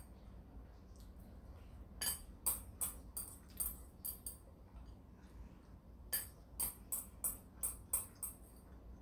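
Chopsticks clicking against a ceramic bowl as the last noodles are scooped out of it. The light taps come in two runs, two or three a second, starting about two seconds in and again about six seconds in.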